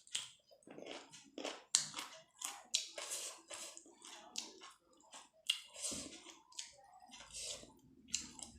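Close-up chewing of steamed chicken momos: a steady run of short, wet mouth clicks and smacks.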